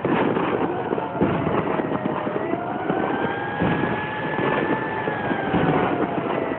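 Armoured military vehicle passing, its engine and tracks making a heavy noisy rumble with scattered crackles. A thin whine wavers slowly up and down over it.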